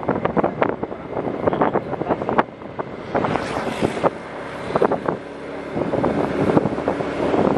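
Wind buffeting the microphone from a moving vehicle, in irregular gusts, over the vehicle's running noise.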